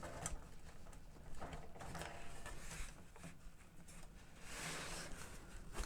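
Faint, scattered clicks, taps and scrapes of hands and tools working at the cassette deck's plastic front panel and chassis while it is being taken apart.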